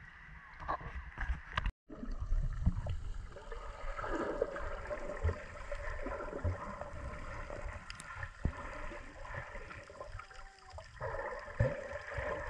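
Water sloshing around a GoPro Hero7 at the surface. After a brief dropout about two seconds in, the sound turns to the muffled gurgling and rushing of water heard from underwater, with bubbles and occasional knocks on the camera.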